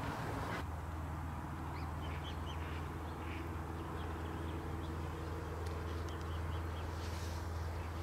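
Lakeside ambience: waterbirds giving many short calls over a steady low hum.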